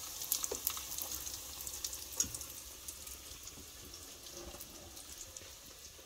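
Homemade yeast donuts frying in a pot of hot oil, sizzling with fine crackles, with a light tap about two seconds in; the sizzle grows fainter in the second half.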